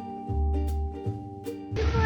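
Light background music of plucked notes over a bass line. Near the end it gives way to a cat starting a meow.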